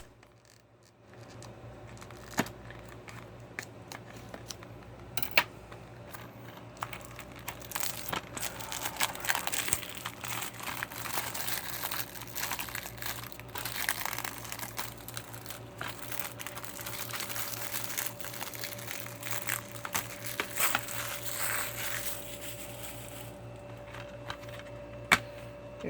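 Plastic wrapping being torn and peeled off a new DVD case, crinkling on and off, with a few sharp clicks in the first few seconds.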